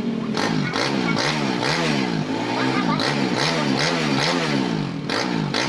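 Honda Win 100's single-cylinder four-stroke engine revved in quick repeated throttle blips, its pitch rising and falling about two to three times a second.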